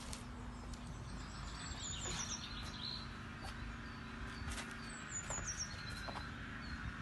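A small songbird singing a short, high, descending phrase of quick notes, repeated about every three seconds, over a faint low steady hum.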